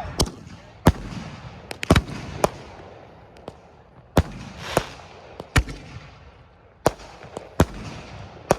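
A 25-shot consumer firework cake firing: about a dozen sharp bangs at uneven gaps of half a second to a second, with a hiss between shots.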